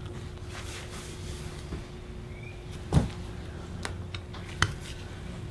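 A few clicks and knocks of a Briggs & Stratton V-twin carburetor and a hand tool being handled on a towel-covered bench, the loudest about three seconds in, over a faint steady hum.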